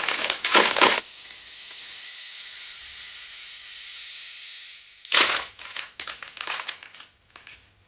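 Plastic packaging crinkling and rustling as a parcel is opened by hand. In the middle there is a steady high hiss lasting about four seconds, and crinkling starts again about five seconds in.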